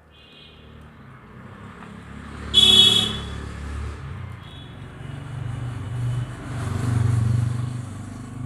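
Road traffic passing close by: engine rumble that swells and fades, with a loud horn blast about two and a half seconds in and fainter short toots near the start and around four and a half seconds in.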